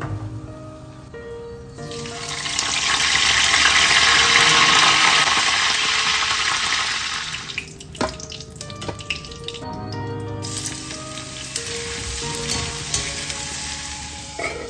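Hot oil in an iron kadai sizzling and spattering loudly for about five seconds as food is dropped in, then settling to a faint sizzle. A few sharp clinks come around the middle, and background music plays throughout.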